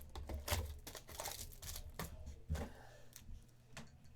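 Trading card packs and cards being handled: irregular crinkling of pack wrappers and cards clicking and sliding, in short rustles of varying loudness over a low steady hum.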